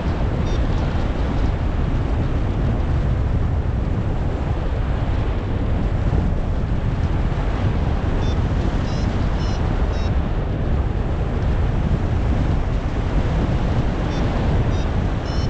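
Strong wind buffeting the action camera's microphone, steady and heaviest in the low end. Clusters of short high electronic beeps come through near the start, in the middle and near the end, typical of a paragliding variometer signalling climb.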